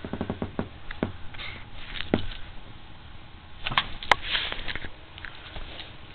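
West Highland white terrier rooting in bedding: short bursts of sniffing and snuffling over the rustle of blankets, with two sharp clicks about four seconds in.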